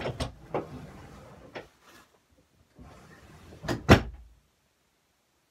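Knocks and rattles of household things being moved about, then one loud bang about four seconds in, like a door or cupboard being shut.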